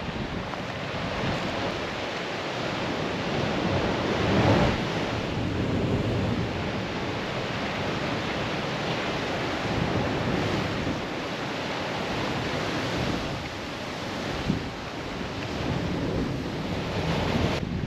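Ocean surf washing against a rocky shore, with wind blowing across the microphone. The rush swells about four and a half seconds in and again near the end.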